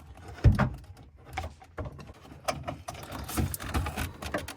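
Light clicks and taps of a plastic fridge damper cover and screw being handled and fitted into place, with one louder thump about half a second in.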